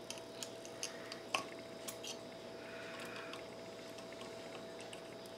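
Scattered light clicks and taps of a soldering iron and tool on the metal terminals of a smart-plug circuit board during desoldering, with a short soft hiss about three seconds in. A faint steady hum lies under it.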